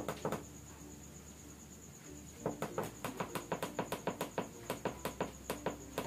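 Buttons on a small digital incubator thermostat being pressed over and over to step its setting: two short clicks at the start, then from about two and a half seconds in a quick, even run of clicks, about five a second.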